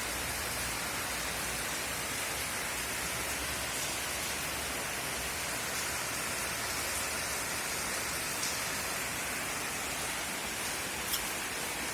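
Steady rainfall: a constant even hiss with a few single drop ticks, the sharpest one near the end.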